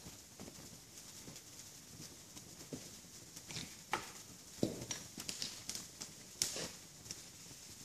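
Petrol-doused dry timber fires burning with soft crackling: a dozen or so irregular sharp pops, the loudest about four, five and six and a half seconds in.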